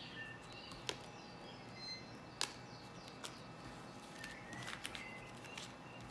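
Oracle cards being gathered from a spread and squared into a deck on a table: soft sliding of card stock with a few sharp taps, the loudest about a second in and about two and a half seconds in.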